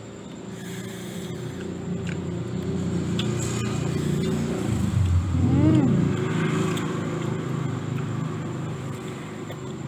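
A motor vehicle's engine going by, a low hum that swells to its loudest about halfway through and then fades, its pitch rising and falling at the peak. There are faint clicks over it.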